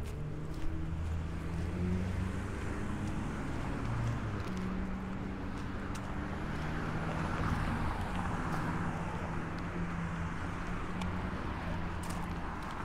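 Street traffic: a steady low engine hum with cars passing on the road. The tyre noise swells about seven to nine seconds in.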